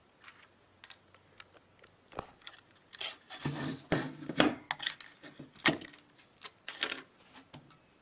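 A metal CPU heatsink with its fan being handled on a desk: irregular clicks, knocks and scraping as it is picked up and turned over, loudest near the middle.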